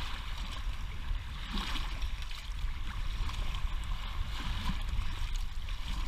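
Small lake waves washing in over a shallow stony shoreline and swirling around a half-submerged rock, over a steady low rumble.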